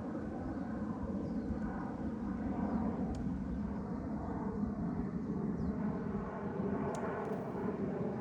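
Aircraft engine drone, a steady low rumble that covers the whole scene.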